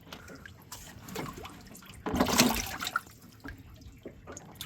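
Water splashing and dripping as a catfish is handled in the water, with one louder splash about two seconds in.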